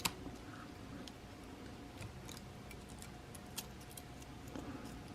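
Faint, scattered light clicks and ticks of a small pry tool and tiny phone parts being handled, with one sharper click right at the start.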